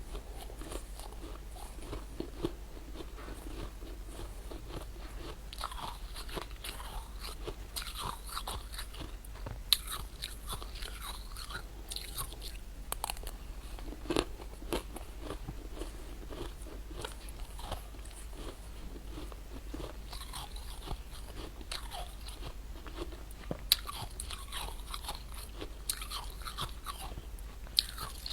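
Close-up biting and chewing of fluffy freezer frost: a steady run of irregular soft crunches, with a few sharper crackles now and then.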